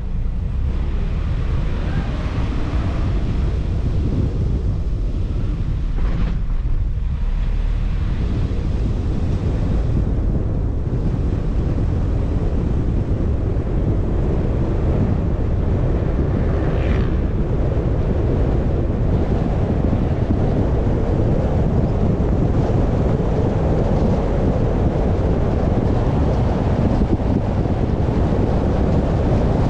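Steady road and wind noise from a car being driven: a continuous low rumble with wind buffeting the microphone.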